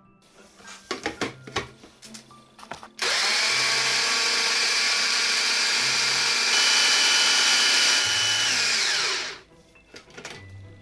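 An AEG personal blender grinding sugar and grated lemon zest. A few clicks and knocks come first, then about three seconds in the motor starts and runs steadily and loudly for about six seconds before winding down in a falling whine.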